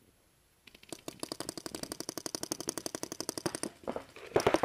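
Paintball marker firing a rapid, evenly spaced string of shots, about a dozen a second for roughly three seconds, then stopping. A louder clatter of further shots and noise follows near the end.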